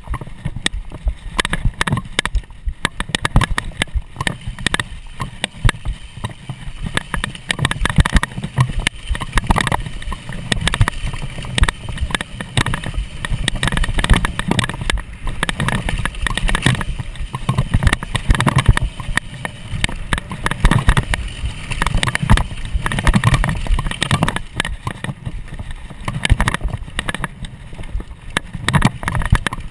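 Mountain bike ridden fast over a rough dirt singletrack, heard from a camera strapped to the rider: constant irregular rattling and knocking of the bike over the trail, over a low rumble of wind on the microphone.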